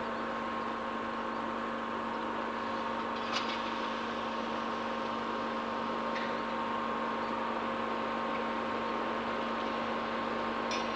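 Diesel-electric locomotive engine running steadily as the train creeps slowly into the platform, a constant drone with a few faint clicks.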